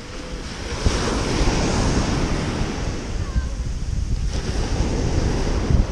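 Small surf waves breaking and washing up a sandy beach, with wind buffeting the microphone in low rumbles.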